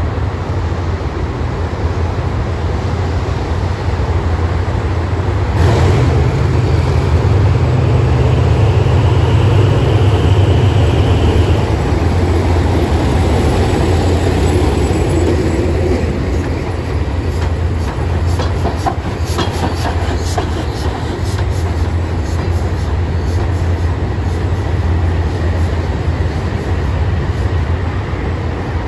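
Diesel-electric locomotive passing slowly, its engine running with a loud low hum that swells as it comes alongside. It is followed by a string of clicks as the wheels of the towed steam locomotive roll over the rail joints.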